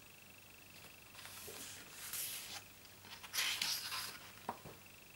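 Glossy photobook page being turned: paper swishing and rustling a few times, the loudest about three and a half seconds in, followed by a short tap.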